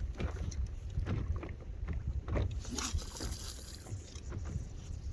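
Water lapping and splashing against an inflatable paddleboard, with wind rumbling on the microphone. A brighter hiss lasts about a second a little past the middle.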